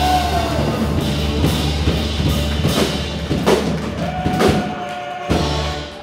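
Live rock band with acoustic and electric guitars and a drum kit playing the final bars of a song, punctuated by a series of sharp drum and cymbal hits. The sound thins out near the end as a last chord is left ringing.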